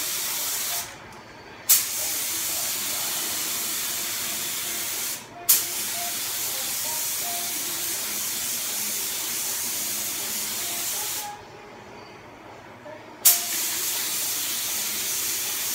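Compressed-air paint spray gun hissing steadily while spraying paint, in long bursts as the trigger is pulled and released. The hiss stops three times, once for about two seconds near the end, and each restart opens with a sharp pop of air.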